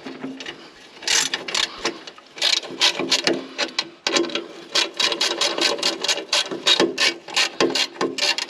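Hand ratchet wrench clicking: irregular strokes at first, then a steady run of quick clicks, about three or four a second, in the second half.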